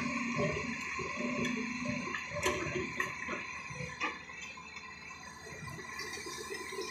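Hydraulic excavators' diesel engines running steadily with a whine over the din, and a few sharp metallic knocks about two and a half, three and four seconds in.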